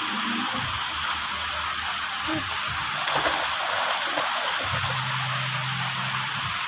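A child swimming in a pool, arms and legs splashing the water for about two seconds from around three seconds in, over a steady background hiss.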